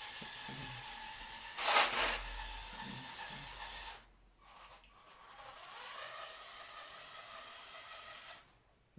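Motorised Lego train running on plastic track, its motor and gears whining steadily, with a brief loud hissing burst about two seconds in. The whine drops out near four seconds, then comes back rising in pitch and holds until just before the end.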